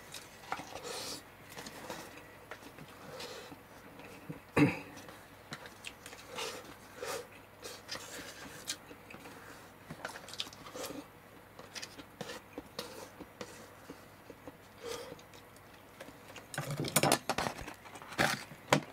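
Light clicks and taps from handling a thin disposable plastic takeout bowl, with one sharp knock about four and a half seconds in. Near the end comes a denser run of louder crackling and clatter as the empty bowl is picked up.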